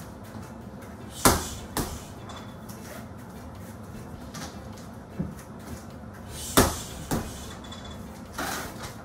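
Boxing gloves striking a heavy punching bag: two one-two combinations about five seconds apart, each a loud smack followed half a second later by a lighter one.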